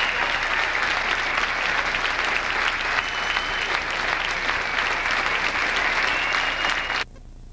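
Audience clapping in a dense, crackling applause, with a few brief high steady tones above it. The sound cuts off suddenly near the end.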